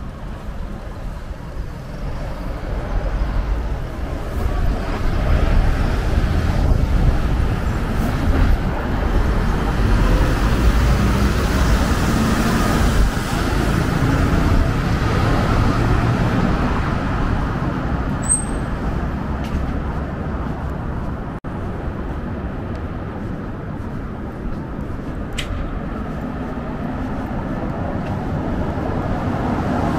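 Road traffic on a busy city avenue: vehicles passing with a continuous rush of engines and tyres. It builds over the first few seconds, eases in the second half and swells again near the end.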